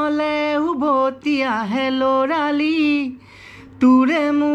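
A man singing a melody unaccompanied, with long held notes that slide between pitches and a short break for breath about three seconds in.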